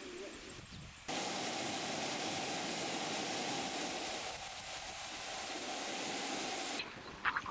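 Steady rushing hiss of stream water flowing over rocks. It starts abruptly about a second in and cuts off abruptly near the end.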